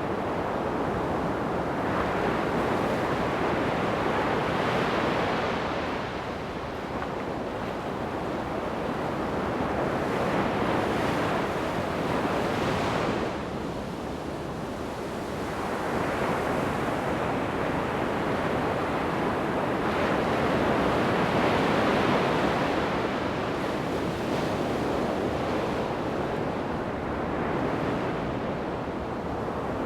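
Ocean surf on a beach: a continuous wash of breaking waves that swells and eases every several seconds.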